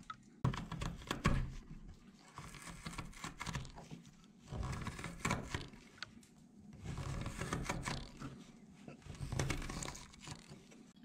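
Carving knife shaving wood in a series of short, irregular scraping cuts, cutting in from the sides of a wooden dish.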